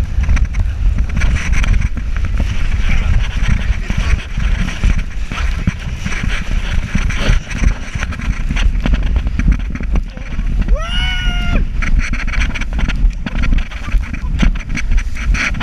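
Rushing wind buffeting the microphone and water spray hissing as the towed inflatable skims across the sea at speed. About eleven seconds in, a short high-pitched yell rises above the noise.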